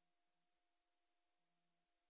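Near silence: the footage has no soundtrack, only a very faint steady hum.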